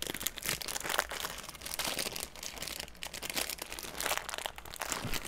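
A snack bag of stiff, fabric-like woven material crinkling and crackling irregularly as hands work to get it open; the bag is hard to open.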